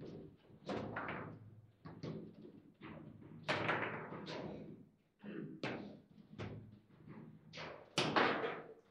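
Foosball table in play: irregular sharp knocks and thuds, about one a second, as the ball is struck by the rod figures and bangs against the table, with the rods clacking in their bearings.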